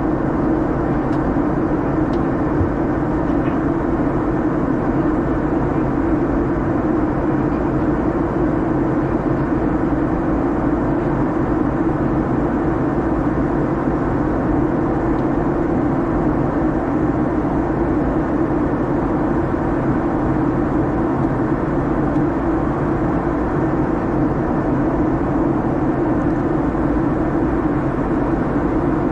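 Steady in-flight cabin noise of a Boeing 737-800 heard from a window seat: the drone of its CFM56 turbofan engines mixed with the rush of air over the fuselage, an even hum that holds without change.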